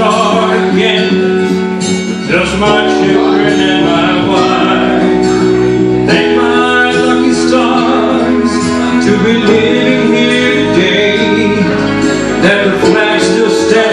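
A man singing into a microphone over backing music with guitar.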